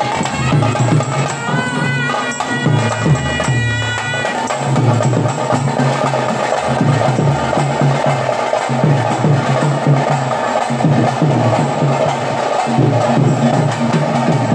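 Procession drums played at the waist, beating a dense, driving rhythm, with a reedy wind instrument playing a wavering melody over them for the first four seconds or so.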